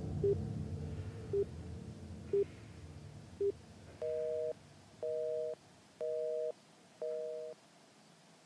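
Telephone tones: a few short single-pitch pips about once a second, then about four seconds in a busy signal starts, four half-second two-tone beeps, one a second. The busy signal means the call is not getting through.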